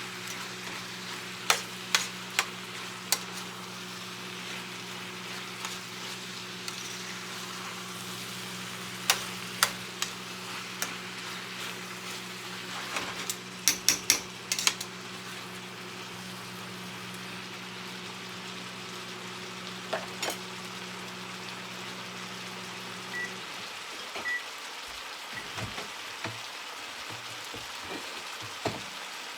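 Chicken and peppers sizzling in a frying pan, with clicks and clatter from a utensil stirring and tapping the pan at times. A steady low appliance hum under it stops suddenly about 23 seconds in, followed by a few short beeps.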